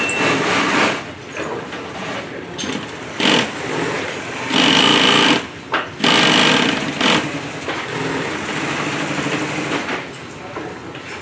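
Industrial sewing machine stitching through fabric in several short runs, starting and stopping as the fabric is guided; the longest, loudest runs come in the middle.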